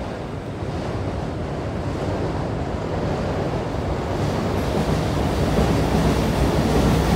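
Wind buffeting a phone microphone outdoors: a rushing, fluttering rumble that grows steadily louder.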